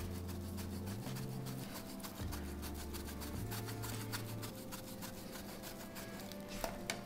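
Background music with sustained low notes that change every second or so.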